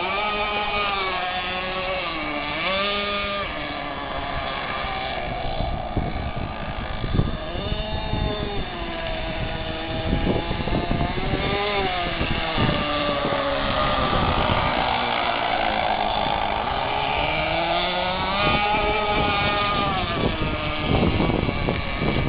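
RC hydroplane boat's twin 380-size electric motors whining, the pitch rising and falling again and again as the boat speeds up, slows and turns on the water. Irregular low thumps break in at times, mostly in the middle and near the end.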